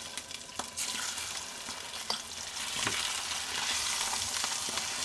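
Fish molee, a coconut-milk fish curry, sizzling and bubbling in the pan on the stove, with a few light clicks.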